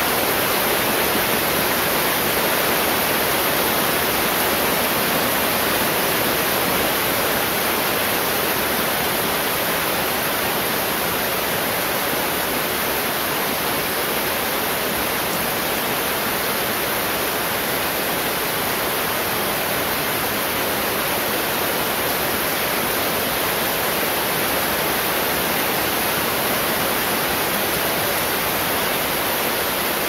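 Heavy rain falling steadily, an even hiss with no breaks or thunderclaps.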